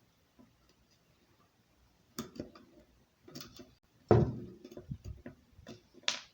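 Steel ball bearings clicking and knocking against the bicycle rear hub's bearing cup and a thin steel rod as they are picked out. The taps are irregular, begin about two seconds in and are loudest a little past the middle.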